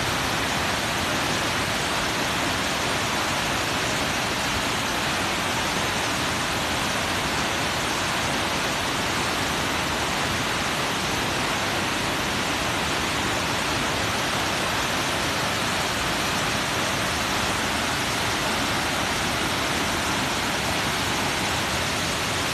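Waterfall, a drop of about 50 metres, rushing steadily as an unbroken wash of water noise.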